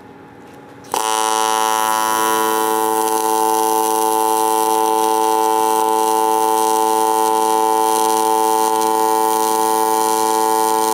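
AC TIG welding arc on aluminum plate strikes about a second in and runs as a steady, loud buzz while a fillet weld is laid along a lap joint.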